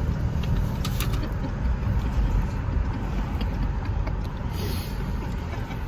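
Car driving, with steady low road and engine rumble heard inside the cabin, and a couple of faint clicks about a second in.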